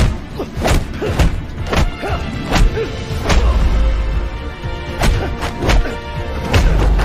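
Film fight soundtrack: tense orchestral score with a rapid series of punch and block impact hits, about a dozen sharp thuds and whacks spread through it.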